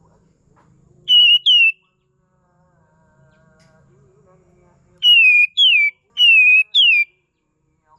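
Kapas tembak bulbul calling in loud whistled notes, each sliding down a little and then flicking up: a pair about a second in, then a run of four near the end. The calls are a lure recording of the kind used to draw in or train songbirds.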